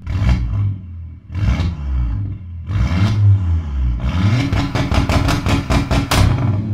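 Engine of an APR Stage 2–tuned Volkswagen CC revving: three quick blips in the first three seconds, then a longer rev, thick with a rapid series of sharp crackles, that drops away a little past six seconds in.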